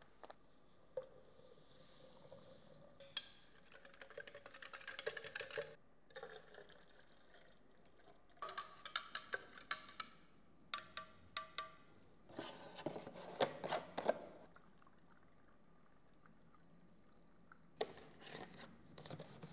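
Fixer powder poured from a packet into water in a graduated cylinder, then stirred with a rod that ticks rapidly against the cylinder wall in bursts. A few handling knocks near the end.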